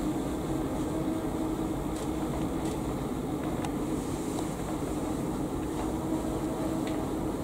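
Steady room hum and hiss of air conditioning, with a few faint ticks scattered through it.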